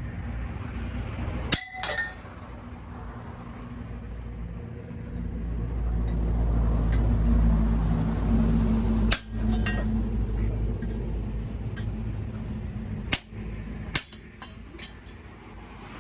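A few sharp metallic clinks and knocks, some ringing briefly, over a low steady rumble that swells in the middle.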